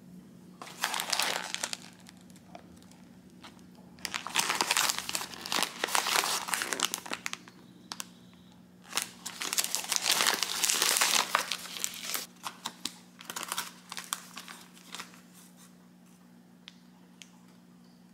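Crinkly wrapper of a yuzu mochi package being untied and opened by hand. The crackling rustle comes in four bursts, then a few light ticks near the end.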